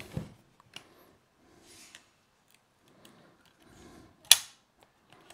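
Small clicks and handling rattles of a blade being fitted into a cordless jigsaw's blade clamp, with one sharp snap about four seconds in as the clamp closes.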